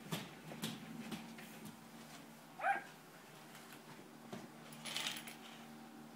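Toy doll stroller's small plastic wheels rolling and knocking over a tile floor, with scattered clicks. About two and a half seconds in comes one short, high squeal that rises and falls.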